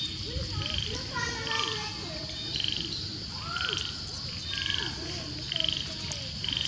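Frogs calling outdoors: a short rattling call repeats about once a second over a steady high hum, with other gliding chirps scattered through.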